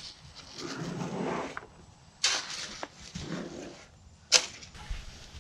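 Steel shovel scraping and digging through a dry pile of soil, sand and Portland cement being mixed by hand for rammed earth. There are soft scraping passes and two sharp scrapes of the blade, about two seconds apart.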